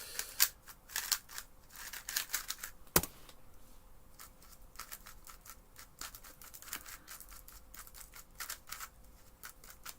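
A magnetic 3x3 speedcube (X-Man Tornado V2 M with core-corner magnets) being turned fast during a solve: quick runs of plastic layer clicks and scraping turns, with one sharp click about three seconds in.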